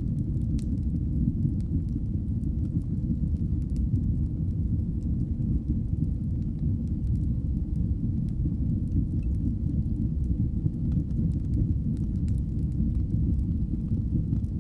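Wood fire burning in a fireplace: a steady low rumble of flames with scattered small crackles and pops.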